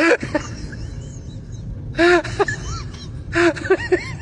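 A cat meowing several times in short calls, each rising and then falling in pitch.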